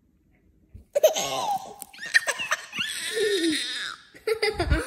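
Near silence for about a second, then a baby laughing in a string of loud, squealing giggles, with a soft low thump near the end.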